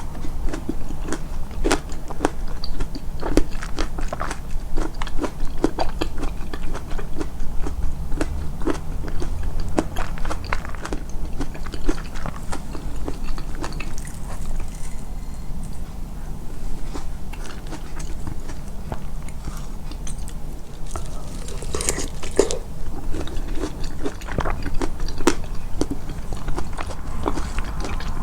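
Close-miked eating: a person biting and chewing, a dense run of small wet clicks and crunches, boosted in editing.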